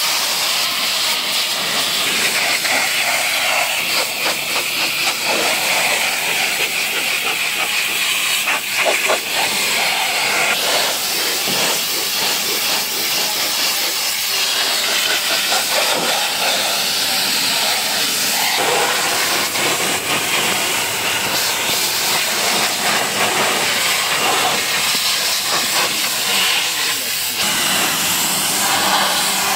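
High-pressure washer jet spraying water onto a car's bodywork: a steady loud hiss of spray that shifts slightly in tone as the jet moves across the wheel arch, door and bumper.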